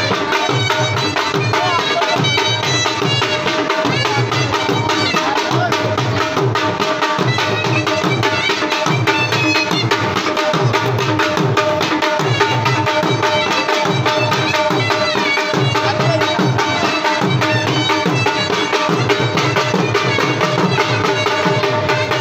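Pashto folk dance music: a dhol drum beating a fast, steady rhythm under a sustained melody line, loud and unbroken.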